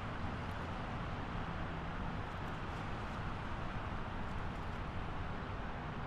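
Steady highway traffic noise: a constant wash of tyre and engine sound with no single vehicle standing out, the level holding even throughout.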